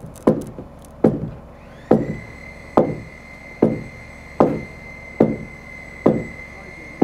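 Sledgehammer blows on a rough-cut timber beam, driving it into a tight notch in a post: eight heavy, evenly spaced strikes, a little faster than one a second.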